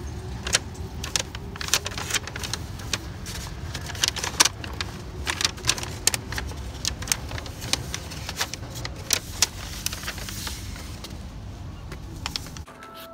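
Irregular sharp metallic clicks and clinks as the stainless-steel roasted sweet potato warmer is opened and handled, over a steady low rumble that cuts off suddenly near the end.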